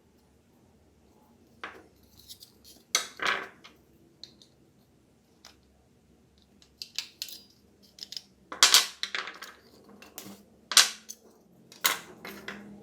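Irregular hard clicks, taps and short scrapes of small hard objects being handled and set down, typical of taking apart or working on a remote control. They come in scattered bunches, with the loudest knocks near the middle and toward the end.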